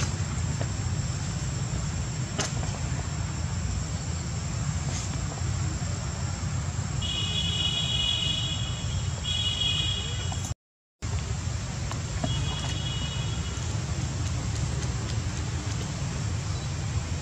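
Steady low outdoor rumble, like wind buffeting the microphone or distant traffic. A high, steady buzzing tone comes and goes a few times near the middle, and the sound cuts out for an instant just past halfway.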